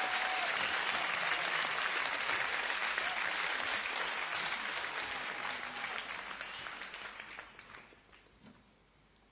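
Studio audience applauding, dying away over the last few seconds.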